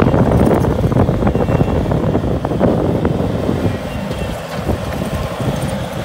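Bobcat compact track loader's diesel engine running under load as it pushes and grades dirt, with frequent knocks and rattles; it eases briefly about four seconds in and builds again near the end.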